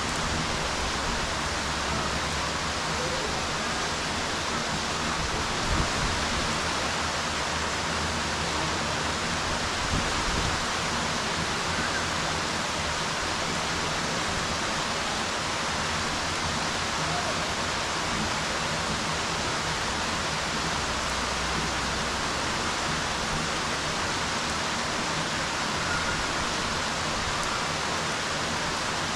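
Rain falling steadily on a swimming pool's water surface, an even hiss without pauses. Two brief low bumps come about six and ten seconds in.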